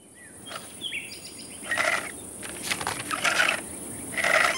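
Cartoon garden ambience fading in: birds chirping briefly and a steady high insect hiss, with three short rustling noises spaced about a second apart.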